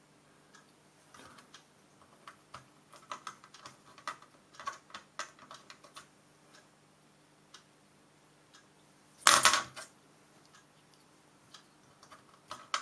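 Small hard clicks and taps of electronic parts being handled on a bare computer motherboard, with one louder clatter about nine seconds in.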